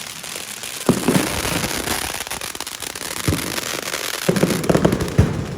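Fireworks and firecrackers going off in a dense crackle, with louder bangs about a second in, at about three seconds, and a quick cluster near the end.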